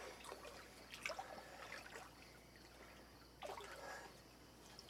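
Faint lake water trickling and lapping, with a few small splashes.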